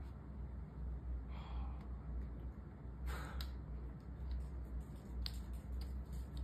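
A man's breathy exhales close to the microphone, a soft one about a second in and a stronger sigh about three seconds in, over a steady low hum, with a few faint clicks.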